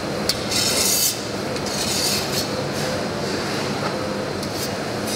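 Steady hum of commercial kitchen ventilation, with two short bursts of scraping and a few sharp clicks from utensils being worked against chocolate and the stainless-steel worktop.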